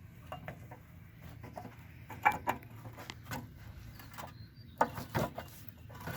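Steel pin being worked through the mini excavator's bucket linkage: scattered light metallic clinks and knocks, a few of them louder and briefly ringing.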